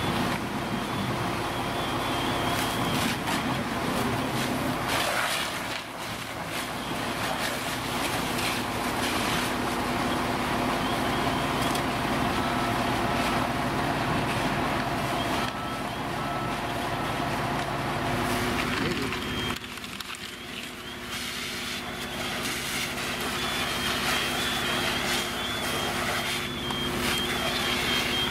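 Fire engine's diesel running steadily at a working house fire, with an intermittent high electronic beeping repeating over it.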